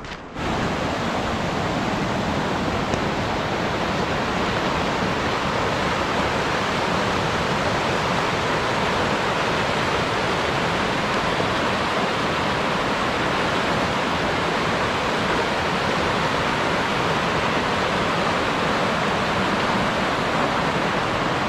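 Fast mountain creek rushing over rocks: a steady rush of water that starts abruptly about half a second in and holds even throughout.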